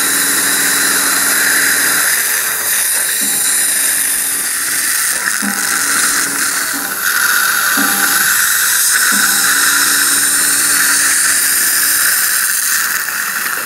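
Implant surgery motor driving a contra-angle handpiece with an implant drill into the jawbone. Its low whine stops and starts again several times, over a steady hiss.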